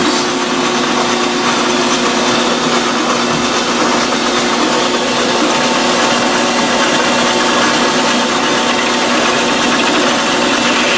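King Canada 10 x 22 metal lathe running steadily with a steady machine whine while the tool takes a turning cut along a metal shaft. This is a spring pass: the cut is repeated at the same cross-slide setting and still removes metal, the sign of spring back in the small lathe's tool post and compound.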